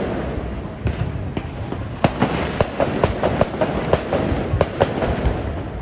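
Firecrackers going off in a string of sharp bangs, scattered at first, then coming about three a second from about two seconds in, over a steady background of street noise.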